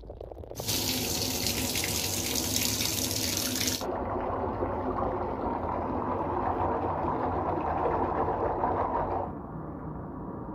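Water running from a bathtub faucet into a tub filling with bubble bath, a steady rush. It changes abruptly about four seconds in, turning duller, and drops quieter near the end.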